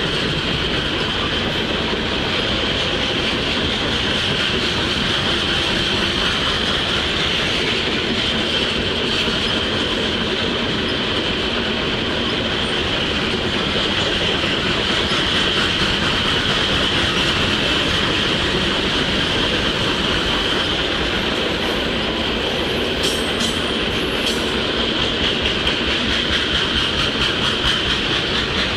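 Freight train of gondola cars rolling steadily past, wheels clacking over the rail joints with a steady high-pitched wheel squeal, and a few sharp clicks about three-quarters of the way through.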